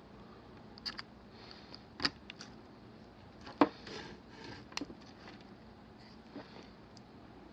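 Scattered light clicks and taps of small hand tools against a radio's circuit board and workbench during desoldering, about half a dozen, the sharpest about three and a half seconds in, with a little faint hiss between them.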